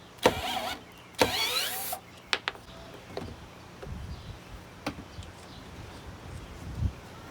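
Power drill spinning off a nut, run in two short bursts with its motor pitch wavering under the trigger, followed by a few metallic clicks and knocks of parts being handled.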